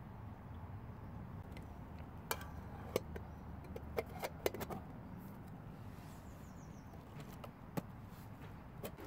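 Aluminium mess tin being handled, its lid and wire handle clinking: a handful of sharp, light metallic clicks bunched a few seconds in, with one more near the end, over a low steady background rumble.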